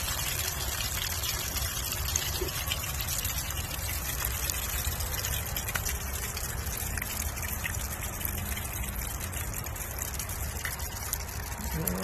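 Water running steadily out of an RV water heater's open drain as the tank is emptied for winterizing.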